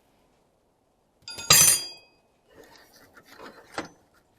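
Heavy steel tools clinking: one loud metallic clink that rings for about half a second near the middle, followed by fainter clicks and rattles as tools are shifted about in a toolbox.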